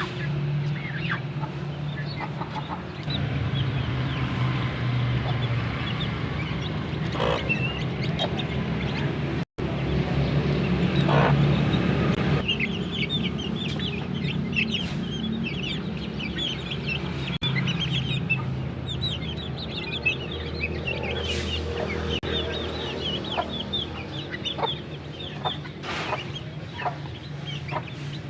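Chickens clucking and chicks peeping, with a dense run of short, high peeps in the middle, over a steady low hum.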